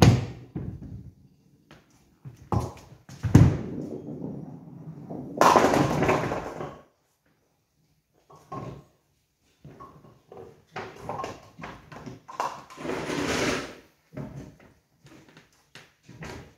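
A nine-pin bowling ball thuds onto the lane and rolls, striking the pins with a sharp knock about three seconds in, followed by a louder clatter of pins and ball. After a short pause, the automatic pinsetter resets the pins with a series of knocks and rattles.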